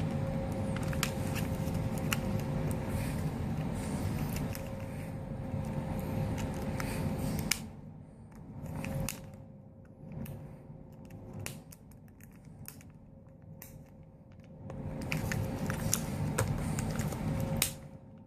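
Small clicks and scrapes of hands working a laptop screen's cable connector and the tape holding it down, over a steady background hum that drops away about seven seconds in and comes back near the end.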